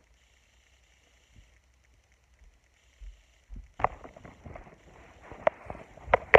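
Near silence at first, then from about four seconds in, rustling and a run of sharp knocks and clicks from a phone being handled and moved.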